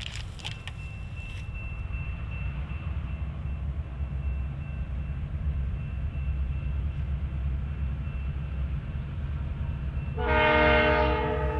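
EMD GP38-2-led diesel locomotives rumbling at low speed as they approach, growing slowly louder. About ten seconds in, the locomotive horn sounds one loud multi-note chord for just over a second.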